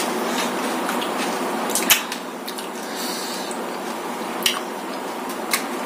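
A metal spoon clinking and scraping against a bowl a few times as someone eats from it, over a steady background hiss.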